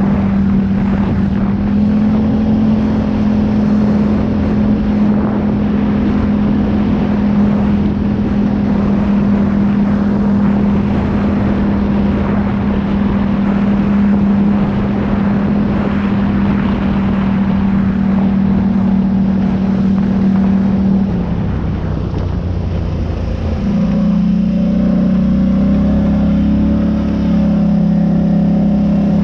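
A vehicle's engine running steadily under load, with a rough rumble beneath a constant drone. It eases off briefly about two-thirds of the way through, then pulls again at a slightly different pitch.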